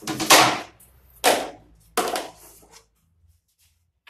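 Wooden strips clattering as they are put down on a pile: three loud, sharp knocks within about two seconds.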